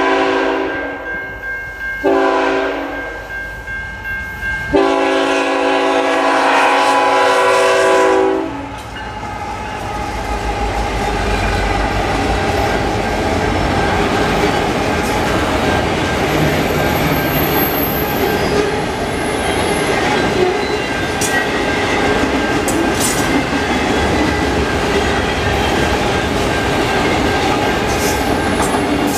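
Horn of a CN GE ET44AC diesel-electric locomotive finishing a grade-crossing pattern: a blast trailing off at the start, a short one about two seconds in, then a long one held from about five to eight seconds. After it the locomotives pass, and a long string of auto-rack freight cars rolls by with steady wheel rumble and clickety-clack.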